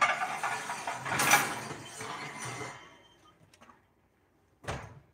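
Handling noise: a rough sliding or rasping sound lasting about three seconds that fades away, then a single dull thump near the end.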